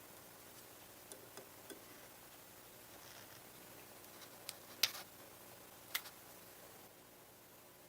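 Faint room tone with small clicks and taps: three light ticks in quick succession about a second in, then a few sharper clicks spread over the next couple of seconds, one much louder than the rest.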